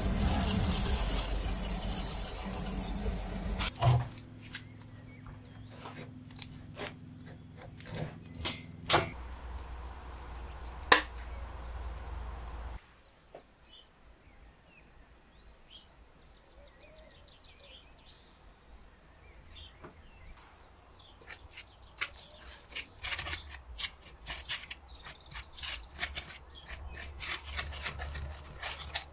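Wooden stick stirring and scraping a paste of sawdust and white glue on cardboard, a dense crackling rub near the end. Before it, a loud dense sound stops suddenly about four seconds in, then scattered knocks over a low hum that cuts off about a third of the way through, then a near-quiet stretch.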